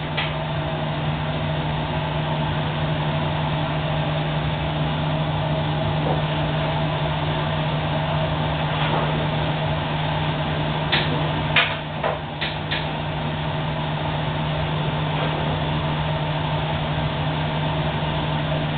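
10 kW high-frequency plastics welding machine running: a steady low electrical hum under constant machine noise, with a few sharp clicks about two-thirds of the way through.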